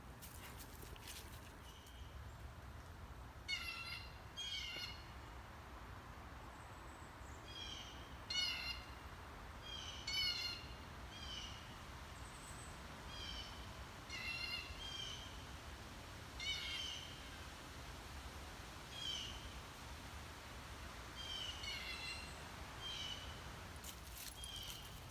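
A bird calling again and again in short, harsh notes, single or in pairs, every second or two, over a faint steady background rush.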